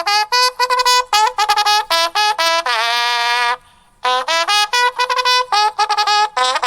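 Trumpet music: a quick run of short, detached notes, then one longer held note about three seconds in, a brief pause, and another run of short notes.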